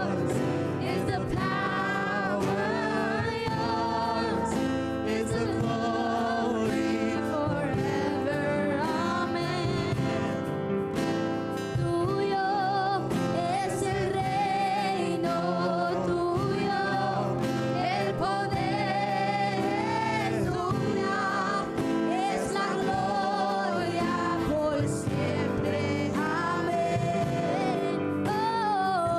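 Live gospel worship song: voices singing a wavering melody over steady instrumental accompaniment.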